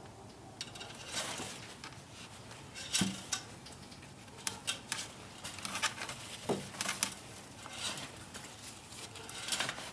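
Scattered light clicks, clinks and taps of small hard parts being handled in an engine bay, with a few sharper knocks about three seconds and six and a half seconds in.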